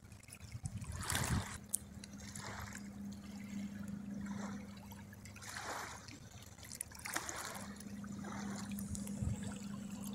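Small waves lapping on a stony riverbank, a soft splash about every second and a half, over a steady low hum.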